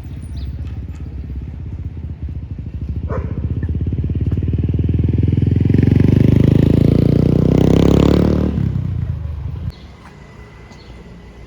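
A motor vehicle's engine passing close by, growing louder to a peak about six to eight seconds in, then dropping away suddenly.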